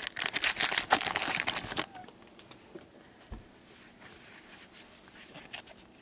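Wrapper of an O-Pee-Chee hockey card pack crinkling and tearing as it is opened by hand, for about the first two seconds. After that come faint rustles and small clicks of the cards being handled and sorted.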